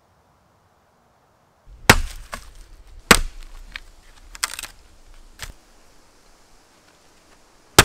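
Axe chopping a birch branch laid across a stump: about five sharp blows of the blade biting into the wood, with smaller cracks of splintering between them. The blows start about two seconds in, and the first and last are the loudest.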